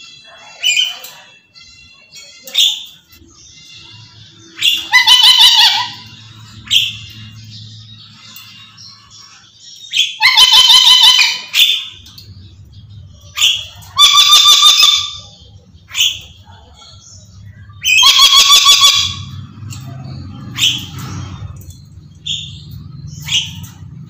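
Black-capped lory screeching again and again: four loud screeches of about a second each, with shorter calls in between.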